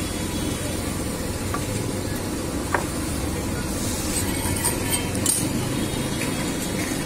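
Steel spoon scraping and clinking on a large iron tawa as oil is spread over it, between about four and five and a half seconds in, over a steady background hiss. A single sharp click comes a little under three seconds in.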